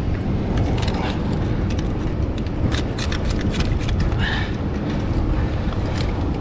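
Small chisel clicking and scraping against mussel shells as giant mussels are pried off a rock, with a run of sharp clicks in the middle. A steady low rumble of wind on the microphone runs underneath.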